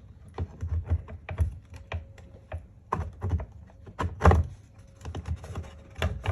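Irregular clicks and knocks of a cast lead weight being fitted into a 3D-printed plastic part, with one louder knock after about four seconds.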